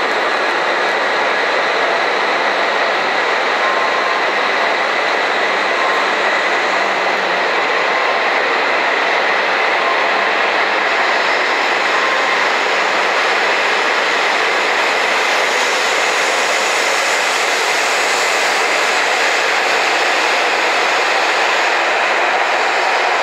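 H5 series Shinkansen train pulling out from a station platform as it picks up speed: a steady rush of running noise with a steady tone in it, turning brighter in the second half.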